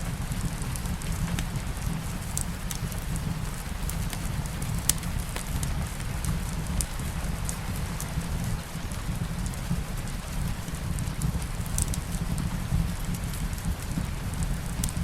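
Steady light rain mixed with a crackling wood fire: a continuous hiss and low rumble with scattered sharp pops and snaps, a few standing out a little louder.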